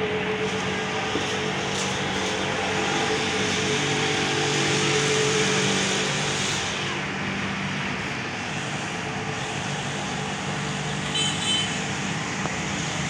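Heavy rain falling steadily, a dense even hiss, with a steady low hum underneath through the first half. A short high-pitched chirp sounds about eleven seconds in.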